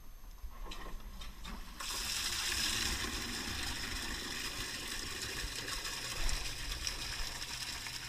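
Water gushing from a sump pump's PVC discharge pipe into a plastic 5-gallon bucket, pumped by a Zoeller M53 sump pump that has just been plugged in. A few clicks come first, then the water rushes in suddenly about two seconds in and keeps up a steady, even pour with a low hum underneath.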